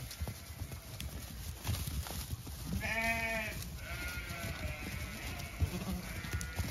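Zwartbles lambs bleating: one clear bleat about three seconds in, then fainter bleats that trail off near the end.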